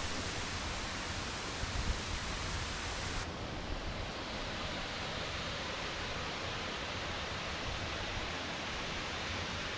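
Steady rushing outdoor noise with wind rumbling on the microphone; the high hiss drops away suddenly about three seconds in.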